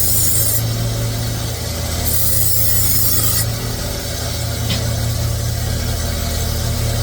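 A Shun chef knife being sharpened: the blade drawn in long scraping strokes across an abrasive, two passes of about a second and a half each with a gap between, over a steady low hum.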